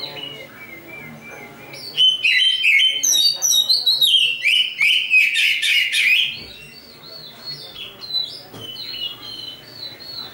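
Caged oriental magpie-robin of the black-bellied form (kacer dada hitam) singing. Soft whistled notes come first; about two seconds in, a loud, fast run of varied notes lasts some four seconds, and then it goes back to softer repeated whistles.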